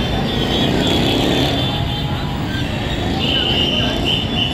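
Street traffic: vehicle engines running as a pickup truck and motorised tricycles move past. A traffic whistle is blown near the end, one long blast then two short ones.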